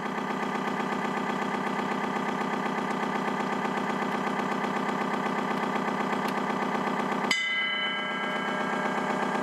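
RC tugboat sound module playing a diesel engine idling effect through a small onboard speaker: a steady, evenly pulsing thrum with no deep bass. A bell strikes once about seven seconds in and rings away.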